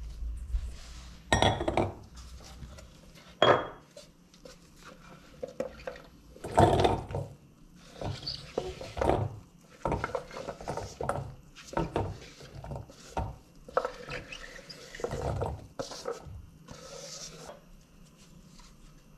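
Kitchen prep handling in a string of irregular knocks, clinks and scrapes: a stainless steel mixing bowl clattering as it is set down and moved, a knife scraping across a wooden cutting board, and chopped zucchini pieces dropping into the metal bowl.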